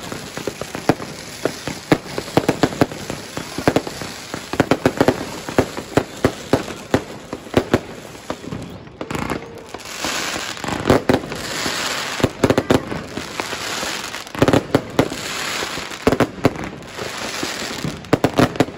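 Fireworks and firecrackers going off all around: many sharp bangs and cracks in quick succession, with stretches of dense crackling about halfway through and again near the end.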